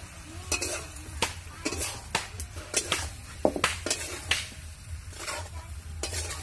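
Metal spatula scraping and knocking against an iron kadai as pieces of chicken skin are stirred, in irregular strokes about twice a second.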